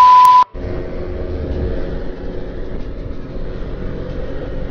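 A loud, steady high test-tone beep over TV static, the sound of a colour-bars transition effect, cuts off suddenly about half a second in. After it a motorcycle engine runs steadily under road and wind noise while riding.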